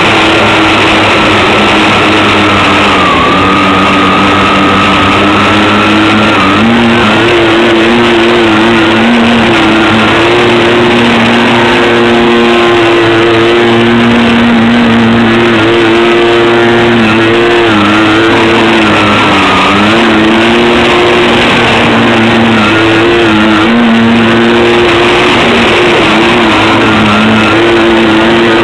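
Twin electric motors of a home-made RC plane whining at slightly different speeds. Their pitch steps up about six seconds in and dips briefly twice as the throttle changes.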